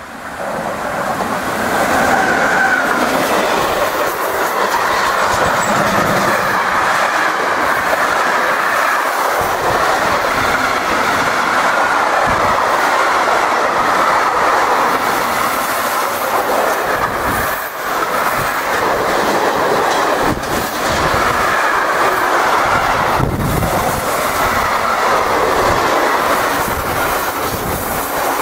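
Electric-hauled freight train of open box wagons and hopper wagons passing close by at speed. The noise rises sharply about a second in as the train arrives, then holds loud and steady, with sharp clicks from the wheels over rail joints now and then.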